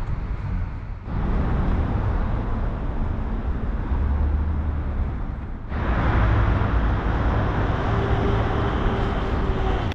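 Street traffic noise: a steady rush of passing cars with a low rumble. It changes abruptly about a second in and again near the middle.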